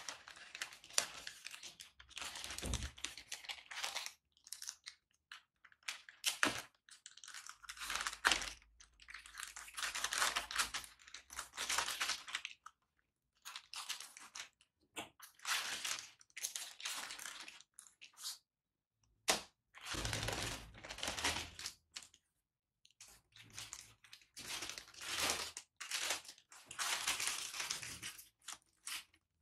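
Plastic courier mailer bag crinkling and being cut and torn open, in a series of rustling bursts with short pauses between them and a few soft thumps as it is handled.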